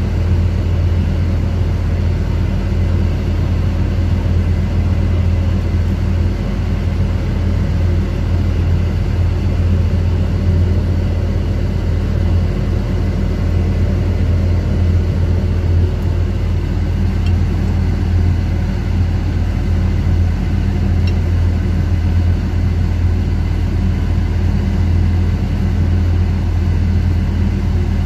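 Steady low drone of a fishing vessel's onboard machinery running without change, with two faint small ticks in the second half.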